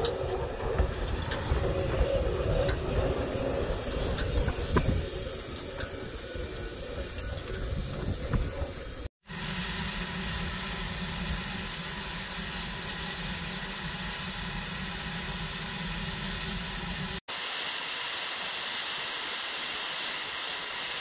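Welsh Highland Railway narrow-gauge Garratt steam locomotive pulling its train in with a low rumble and light clicks of wheels over the rails. After a cut, the engine stands hissing steam. After a second cut, a louder, high, steady hiss comes from steam blowing off in a tall plume.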